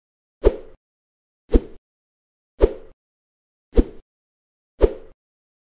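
Five short pop sound effects about a second apart, each dying away quickly, with silence between.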